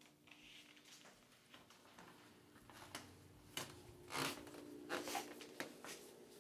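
Faint footsteps, then a series of light knocks and clicks as a small glass pitcher is handled at a stainless steel kitchen sink.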